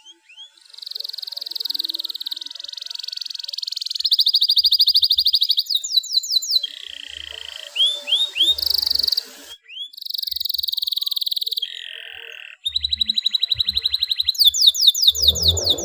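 Domestic canary in breeding condition singing: a long song of rapid trilled rolls, each section a different fast repeated note, with short rising chirps between sections and brief breaks about 9.5 and 12.5 seconds in.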